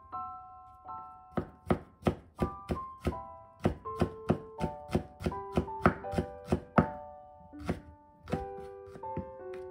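Chef's knife chopping on a wooden cutting board: a quick run of sharp knocks, about three a second, that stops about two-thirds of the way through. Light piano music plays throughout.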